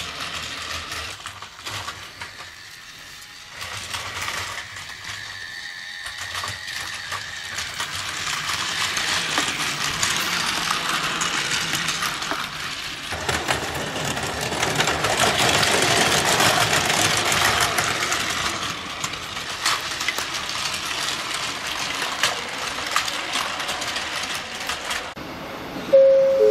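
Battery-powered Plarail toy train, the E001 Shiki-shima model, running on plastic track: a small motor whirring with rapid wheel clicking, quieter for the first few seconds, then louder. Right at the end a sudden, loud steady tone cuts in.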